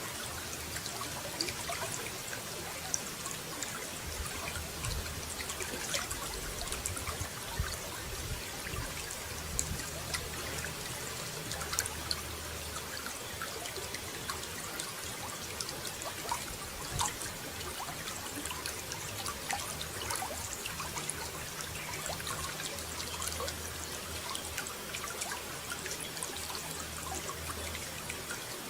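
Running water trickling and pouring steadily, a continuous splashing hiss with many small droplet splashes.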